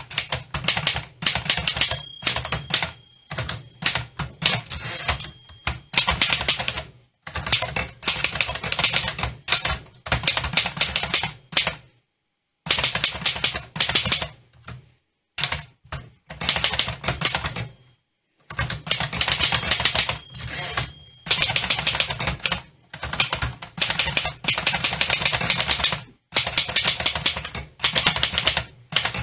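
Typewriter typing: fast runs of sharp keystroke clacks with short pauses between them, stopping completely twice for a moment.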